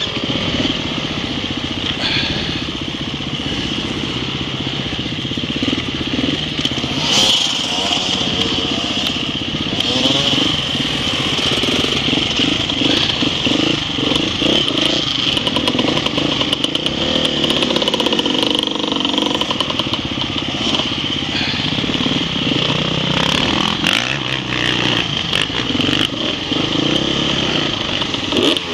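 Enduro motorcycle engine riding an off-road course, revs rising and falling over and over as the throttle is worked, with a steady high-pitched hiss alongside.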